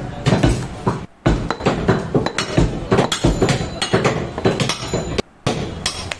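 Butcher's knife and cleaver working goat meat: rapid, irregular chopping strikes with metallic clinks, several a second. The sound breaks off briefly twice, once about a second in and once near the end.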